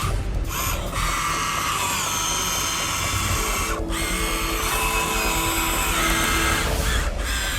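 Small electric motors and gearboxes of remote-control construction models whining steadily, cutting out briefly three times as the controls are let go and pressed again.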